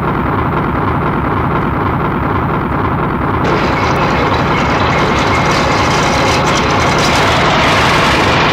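Outro sound effect: a loud, dense, steady rumbling noise that starts abruptly and grows brighter about three and a half seconds in.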